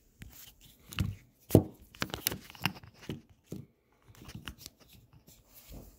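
Irregular rustling and clicking of hands handling plastic-bagged cooler accessories and packaging, with a sharp knock about one and a half seconds in.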